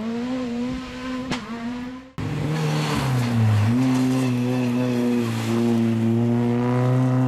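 Rally car engines at high revs: a short rising engine note with a sharp crack about a second in, then, after a cut, a louder engine held at high revs through a corner with one brief dip.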